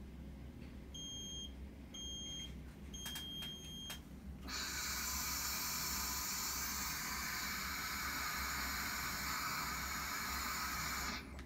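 A Bedfont carbon monoxide breath monitor beeps twice briefly and then once for longer, the signal that its breath-hold countdown has reached zero and it is time to blow. Then a person exhales hard and steadily through the meter's mouthpiece tube for about seven seconds, a loud rush of breath that stops abruptly.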